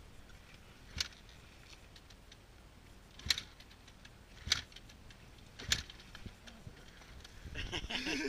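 A motocross bike being kick-started four times, each kick a short sharp clunk of the kickstarter turning the engine over, spaced a second or two apart; the engine does not catch.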